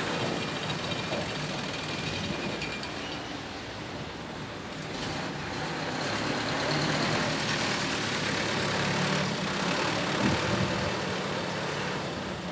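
Diesel engine of a Mitsubishi light truck running as the truck drives slowly past close by and manoeuvres, getting louder midway, with one short knock about ten seconds in.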